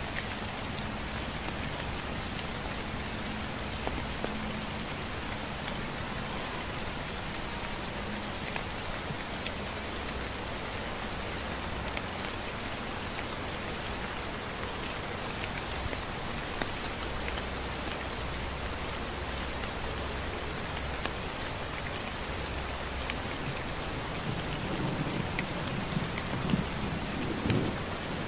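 Gentle steady rain: an even hiss with scattered single drops ticking close by, over a low hum. Near the end a louder low rumble rises for a few seconds.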